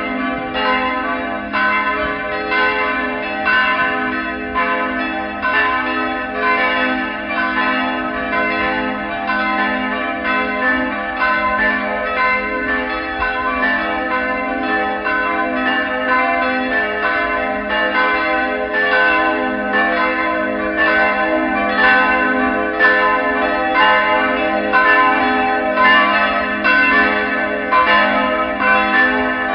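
Church bells ringing: several bells struck over and over in quick succession, their tones ringing on and overlapping.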